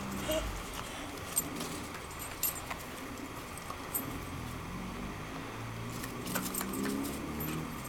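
A dog's collar tags jingling in scattered light metallic clicks as a border collie jumps and twists about.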